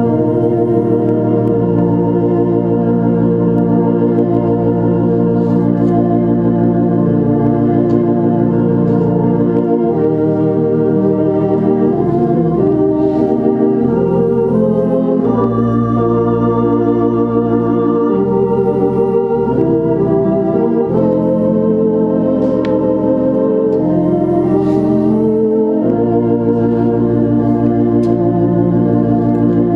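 Organ playing a slow piece in full, sustained chords, the held notes changing together every second or two at an even volume.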